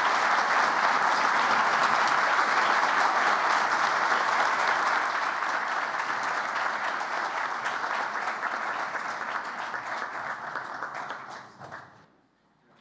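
Audience applauding after a speech, steady at first, then thinning and fading out until it stops about twelve seconds in.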